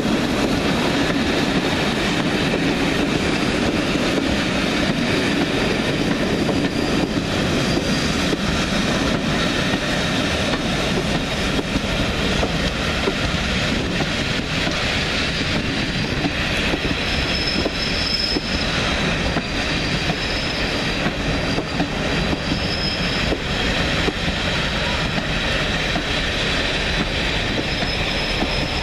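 Train of passenger coaches rolling past close by: a steady rumble of wheels on rails with clatter over the rail joints. A faint high wheel squeal comes and goes in the second half.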